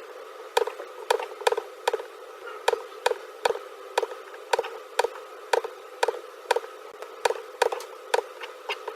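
Computer mouse button clicking repeatedly, about two sharp clicks a second at an uneven pace, as line points are placed one after another in CAD software, over a faint steady hum.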